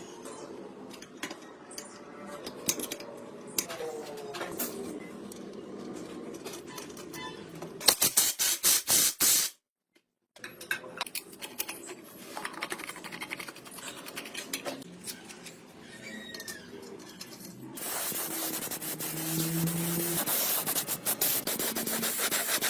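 Metal parts and tools clinking and knocking, with a loud rapid clatter about eight seconds in, then a short break. From about eighteen seconds in comes a steady loud hiss, like sanding or spray work.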